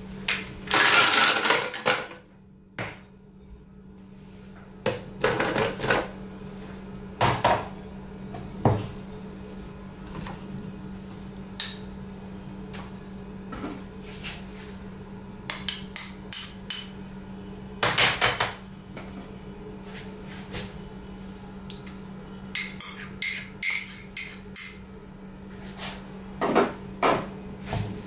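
Scattered clinks and knocks as banana slices, pineapple chunks and yogurt are dropped and spooned into a plastic blender jar, over a steady low hum.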